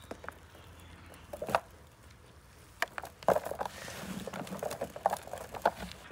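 Chopped raw meat being mixed by gloved hands in a large plastic tub: wet squelching and slapping in irregular handfuls, with sharp clicks among them. The loudest bursts come about a second and a half in, a little after three seconds, and near the end.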